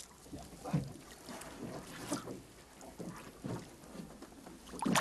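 Water slapping against the side of a small fishing boat, with a few soft, irregular knocks and wind on the microphone.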